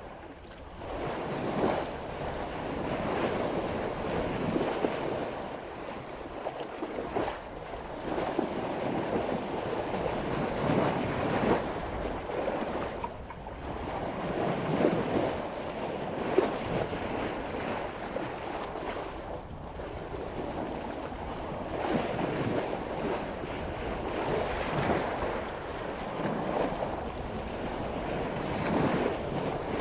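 Water rushing and splashing along the bow of a sailboat cutting through ocean waves at about 5 knots, swelling and easing in surges every few seconds, with wind on the microphone.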